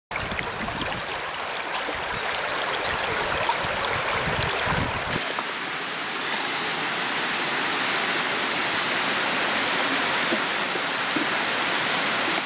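River water rushing steadily over shallow rapids. A low rumble underneath stops abruptly about five seconds in.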